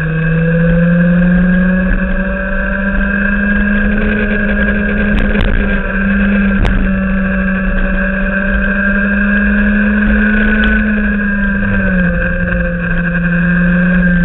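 Racing kart's two-stroke engine running hard, heard from onboard, its pitch climbing slowly and then dropping about twelve seconds in before holding steady again. A few sharp knocks sound around the middle.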